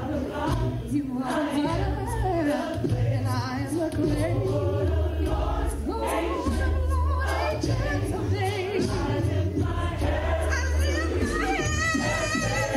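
Gospel choir of women singing a slow worship song, two lead voices out front on microphones, with a sustained low bass note underneath through the middle.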